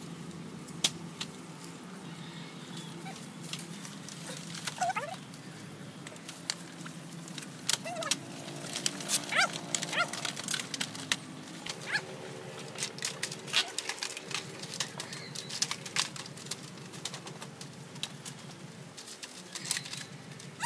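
Scattered clicks and knocks with a few short animal calls over a steady low hum.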